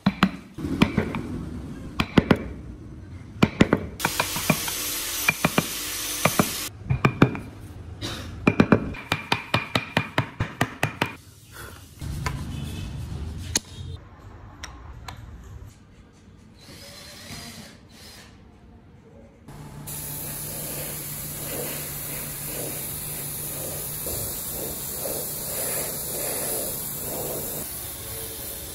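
A chisel tapped repeatedly into wood, sharp strikes in quick runs broken by a short stretch of hiss. Near the end, a spray nozzle on an air hose hisses steadily over a low steady hum.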